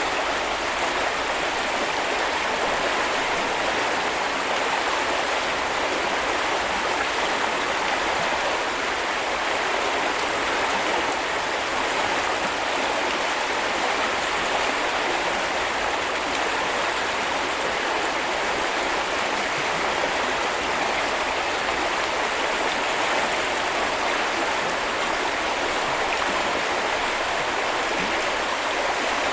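River water flowing steadily, an even, constant rushing with no breaks.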